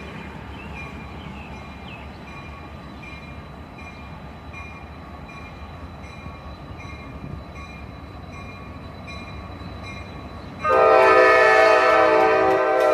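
Low rumble of a train, with a faint regular ding about twice a second. About eleven seconds in, a locomotive air horn sounds suddenly and loudly as a multi-note chord and keeps blowing.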